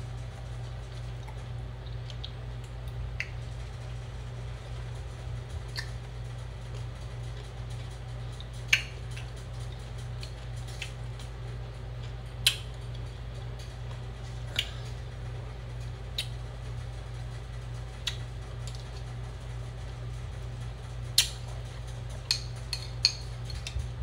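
Metal spoon clinking and scraping against a glass bowl while eating a thick açaí smoothie bowl: short, sharp clinks every second or two, over a steady low hum.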